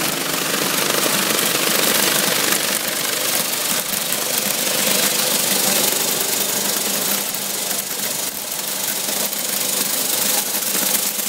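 Titan Gyro rotary vibrating screen (Sweco-type circular sieve) running steadily: a continuous hum under a dense rattle and hiss of plastic pellets shaking across the screen deck and pouring from its discharge spout into a plastic bucket.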